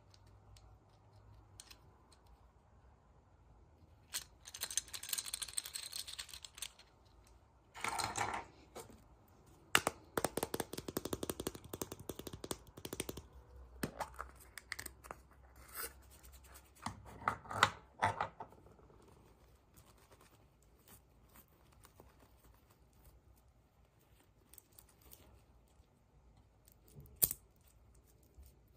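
Packaging being handled and opened by hand: bursts of rustling and tearing with scattered sharp clicks, separated by quieter pauses, and one sharp click near the end.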